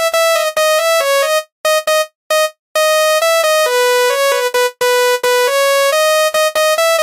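A basuri telolet musical bus horn playing a quick melody of short, clipped notes, with a couple of brief breaks about two seconds in.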